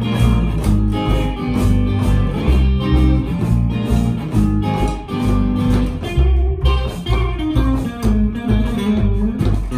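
Live rockabilly band: an upright double bass plucking a walking line under a hollow-body electric guitar, with an electronic drum kit keeping the beat.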